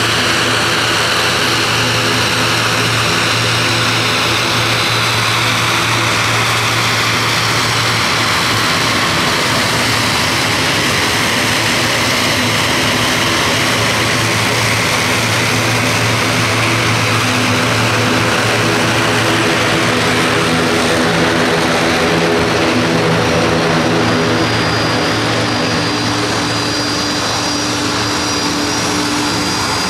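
The twin Pratt & Whitney Canada PW127G turboprop engines of an Airbus CC-295 Kingfisher running at taxi power: a steady propeller drone of several low tones under a broad rushing hiss. The tones shift in pitch in the second half and the sound eases slightly near the end as the aircraft turns away.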